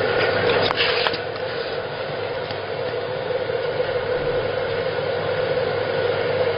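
Steady machine hum, with a brief scraping rub about a second in as a fingertip rubs the freshly laser-marked rubber of a tyre sidewall.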